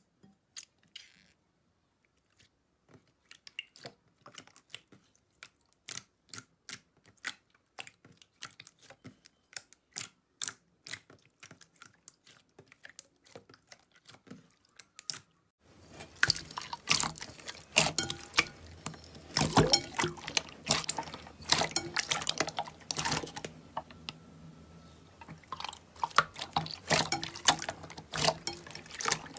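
Slime being squished and poked by hand, making sharp wet clicks and pops. They are sparse and quiet at first, then about halfway through become a dense, louder run of crackling squishes.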